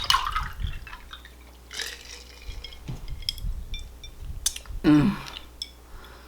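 Drinking water: sips and swallows with a few small high clinks, and a short low voiced sound about five seconds in.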